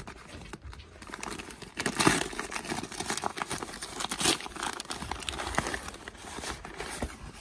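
Thin paper wrapping rustling and crinkling as a hand rummages through paper-wrapped parcels in a cardboard box. There are louder crackles about two seconds in and again a couple of seconds later.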